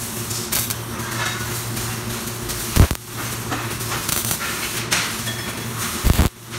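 CO2 MIG welder tack-welding a steel seat-bracket frame: short spells of arc crackle and hiss, over a steady low hum. Two heavy low thumps stand out, one about three seconds in and one near the end.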